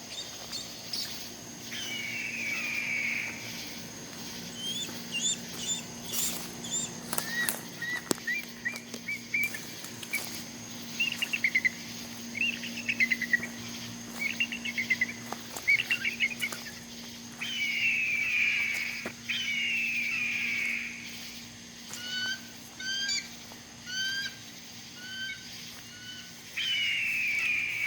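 A large bird high in the trees calling loudly: harsh drawn-out calls of about two seconds each, repeated several times, with bouts of quick chattering notes and short chirps between them.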